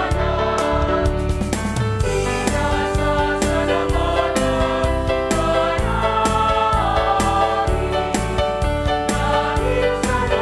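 Christian worship song: group singing over a steady beat and bass.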